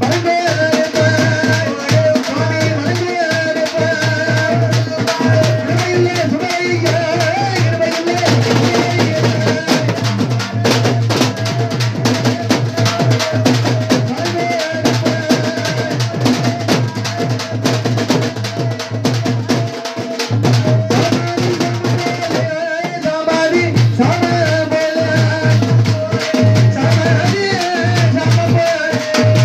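Temple festival drums playing a fast, dense rhythm, with a wavering melody line carried over them and a pulsing low drone beneath; the low drone drops out briefly about two-thirds of the way through.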